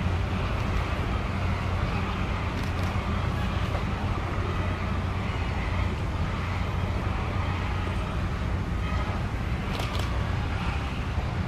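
Steady low rumbling background noise with no distinct events, of the kind heard outdoors near a city.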